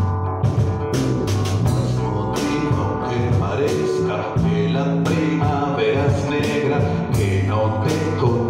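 A small live band playing: electric bass guitar holding low notes, a strummed acoustic guitar and a drum kit keeping a steady beat.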